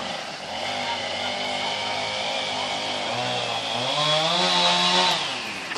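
Chainsaw engine running steadily while cutting through a tree, its pitch rising about three seconds in and falling back near the end.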